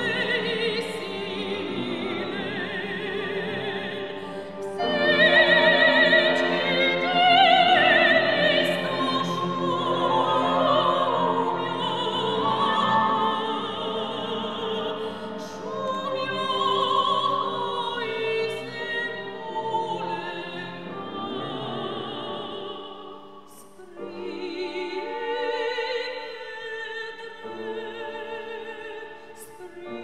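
Soprano voices singing a classical song with vibrato, accompanied by piano and cello. There is a short break in the singing about three-quarters of the way through, then a new phrase begins.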